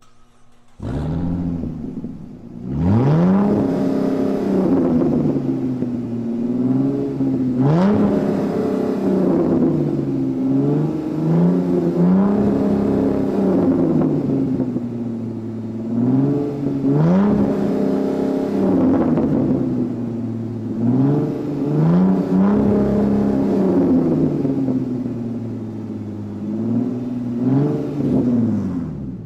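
Supercar engine started, then revved again and again: each rev rises in pitch and falls back to a steady idle, about eight times.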